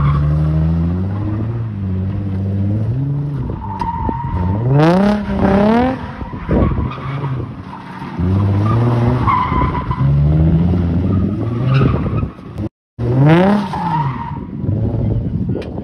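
Cars drifting: engines revving up and falling back again and again while the tyres squeal and skid across the pavement.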